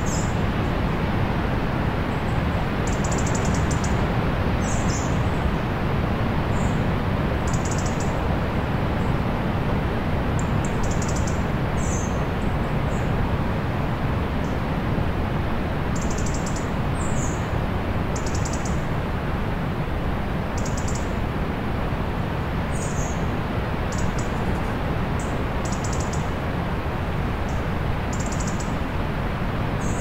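Steady rush of sea surf, with short high bird chirps and quick buzzy trills over it every second or two.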